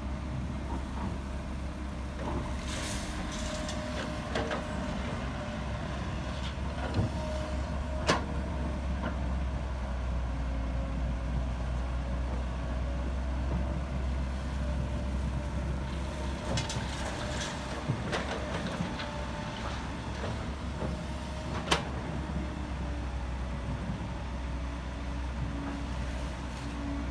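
Heavy diesel earthmoving machinery running steadily with a low rumble, with short hissing spells and a few sharp metallic clanks, the loudest about eight seconds in and another about twenty-two seconds in.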